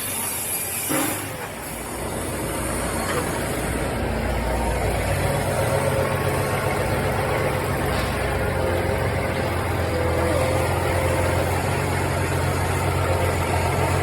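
A heavy vehicle engine running steadily, getting a little louder about five seconds in.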